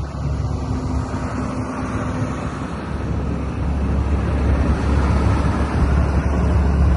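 Diesel engine of a Case CX350D hydraulic excavator running, its low drone growing louder about halfway through. Wind buffets the microphone.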